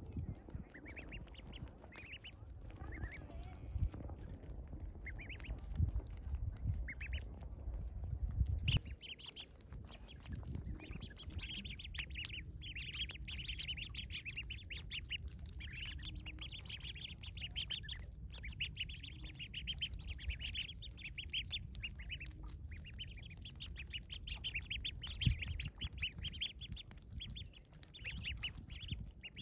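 A group of domestic ducklings peeping, quick short high peeps that come only now and then at first and become a near-continuous chorus from about ten seconds in. A low rumble sits under the first third.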